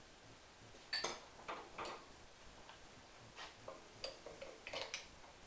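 Irregular metal clicks and clinks as a steel flywheel puller's screws and hand tools are handled and set on an outboard motor's flywheel, loudest about a second in and in a cluster near the end.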